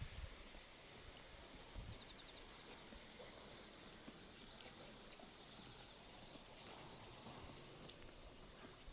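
Faint, steady high-pitched insect trill, with two short chirps about halfway through and a few light ticks.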